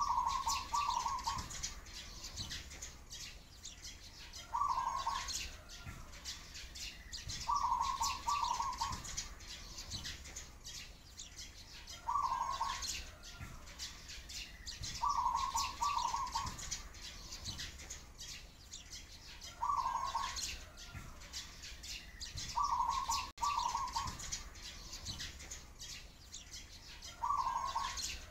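A dove cooing in short phrases about every three to four seconds, some broken into two or three notes, over continuous high chirping of sparrows.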